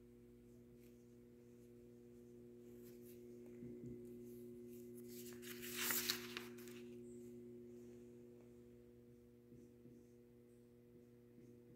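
A steady hum of several low tones in a quiet room, with faint scratching of a marker writing on a whiteboard. About six seconds in comes a louder, brief rustle.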